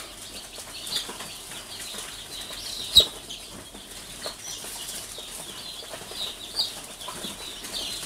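Day-old chicks peeping on and off in short high chirps, with one sharp click about three seconds in.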